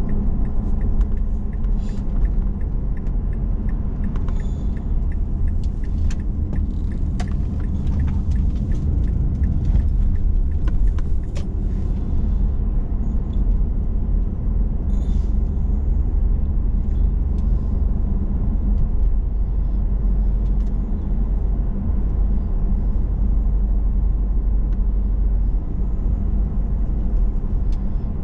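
Car interior road noise while driving: a steady low rumble of engine and tyres, with scattered light clicks and rattles through the first half.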